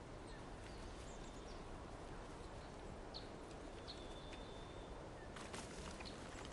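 Faint outdoor ambience: a steady low hiss with a few faint bird chirps and one thin held whistle note about four seconds in. Near the end the background shifts and a few light ticks and rustles come in.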